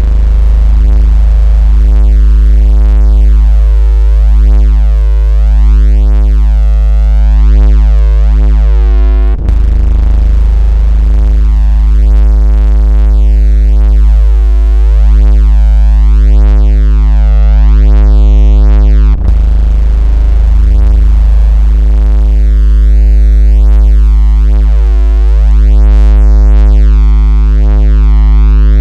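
Loud, steady synthesized 56 Hz buzzing tone: a deep hum rich in overtones, of the kind played to make a phone vibrate or push water out of its speaker. It breaks off for an instant twice, about ten seconds apart, where the loop restarts.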